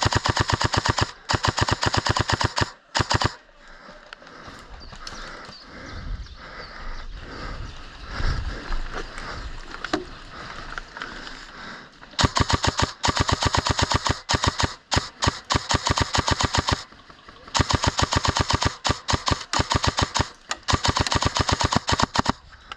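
Airsoft guns firing long full-auto bursts, rapid evenly spaced cracks: one burst of about three seconds at the start, then three more long bursts in the second half.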